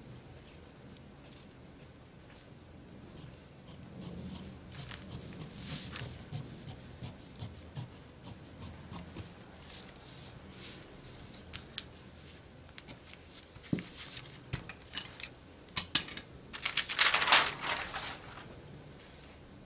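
Sewing scissors cutting through knit fabric in a run of short snips. Near the end there is a louder papery rustle as the paper pattern is lifted off the cut fabric.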